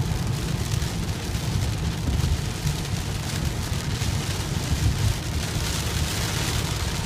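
Heavy rain beating down on a vehicle, a dense steady hiss over a continuous low rumble.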